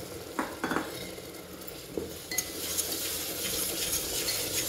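Tomato paste and spice masala frying in hot oil in a metal pot, sizzling while a steel spoon stirs and scrapes through it. The sizzle grows louder a little over two seconds in.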